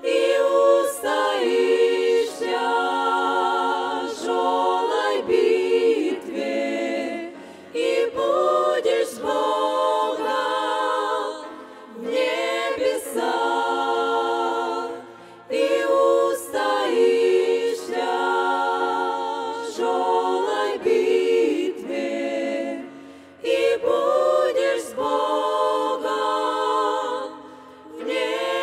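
Women's vocal ensemble singing a Russian hymn a cappella in close harmony, with vibrato, in phrases broken by short pauses every few seconds.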